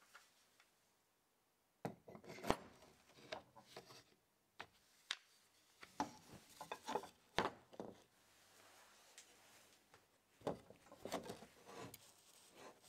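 Wooden tripod leg and its metal clamp band being handled and fitted together: scattered light knocks and clicks of wood and metal with some rubbing. The sounds start about two seconds in.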